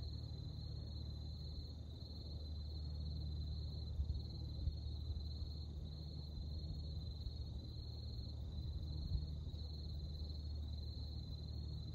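Insects chirping in an even, repeating high-pitched pulse, over a steady low rumble, with a few faint knocks.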